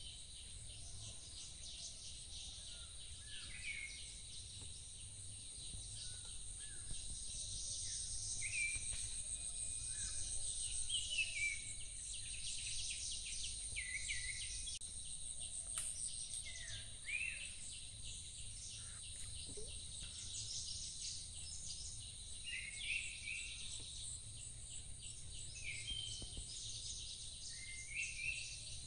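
Birds giving short whistled calls here and there, over a steady high-pitched insect drone, with a low rumble underneath.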